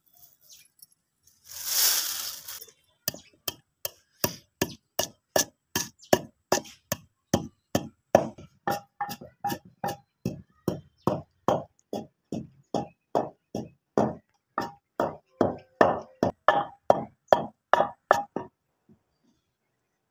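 Long wooden pestle pounding whole coriander and cumin seeds in a terracotta mortar, an even run of sharp knocks about three a second that stops shortly before the end: spices being crushed for a curry. A brief rustling hiss comes just before the pounding starts.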